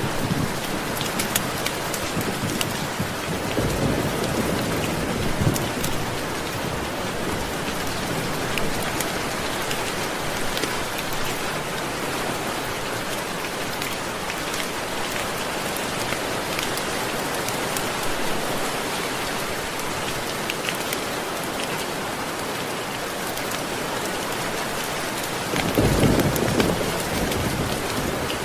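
Steady rain pattering, with low rumbles of thunder about four seconds in and again near the end.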